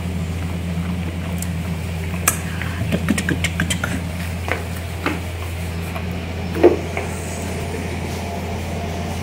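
A dog licking and eating from a plastic bowl, with small clicks of tongue and bowl about two to four seconds in and a louder knock of the bowl a little past six seconds. A steady low hum runs underneath.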